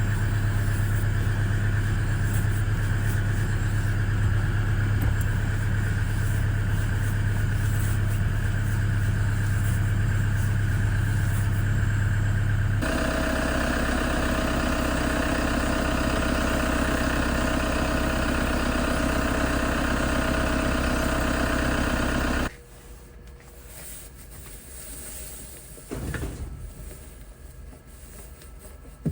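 Toyota Hiace van's engine running steadily. About 13 seconds in, the sound shifts to a lower hum with a steady whine, and it cuts off about 22 seconds in, leaving faint rubbing sounds.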